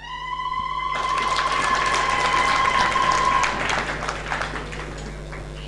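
Audience clapping and applauding, joined at the start by one long high-pitched call held for about three and a half seconds; the clapping thins out near the end.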